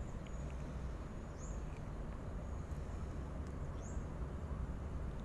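Wind rumbling steadily on the microphone, with a small bird's short high chirp twice.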